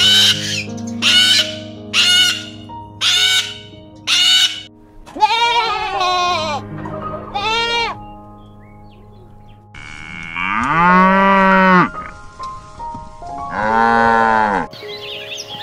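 Five harsh cockatoo screeches about a second apart, then two wavering goat bleats, then two long cow moos near the end.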